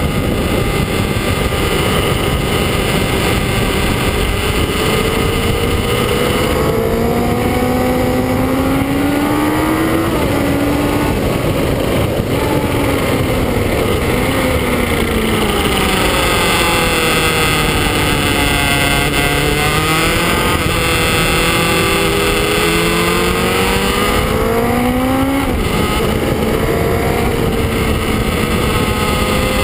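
Kawasaki ZX-9R's 899 cc inline-four at full throttle, heard from a front-mounted camera over heavy wind noise. The engine note climbs steadily and drops sharply at each upshift, with a slower fall and rise in the middle.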